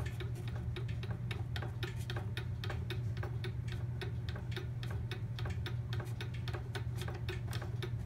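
Antique cuckoo clock ticking steadily, about four ticks a second, over a low steady hum.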